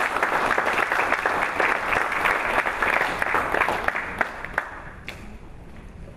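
Audience applauding, a dense patter of clapping that tails off about five seconds in.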